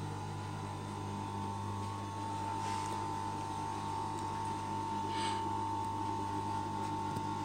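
Steady electric hum with a high whine in it, and two soft rustles of fabric being handled, about three and five seconds in.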